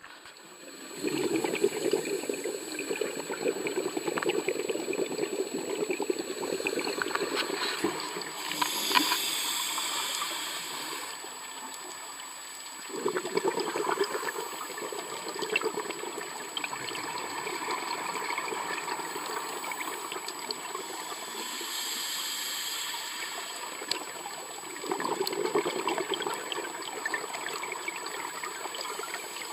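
Scuba regulator breathing heard underwater: long bubbling exhalations starting about a second in, again near the middle and near the end, with a shorter hissing inhalation between them twice.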